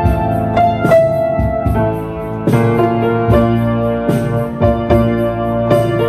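Piano played with both hands: a slow melody of single notes and chords over held bass notes.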